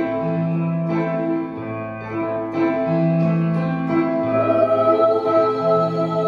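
A youth choir performing a song arrangement: long held low bass notes changing about every second and a half under sustained chords, with a melody above that grows louder from about two-thirds of the way in.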